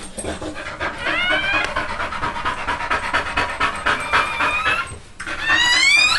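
Pit bull bitch panting rapidly while in labour, still whelping with more puppies to come. A few short high squeaks rising in pitch cut through the panting about a second in, around four seconds in and near the end.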